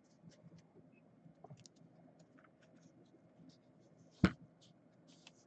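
Trading cards being handled and sorted through: faint scattered clicks and scratchy rustles, with one sharper knock about four seconds in.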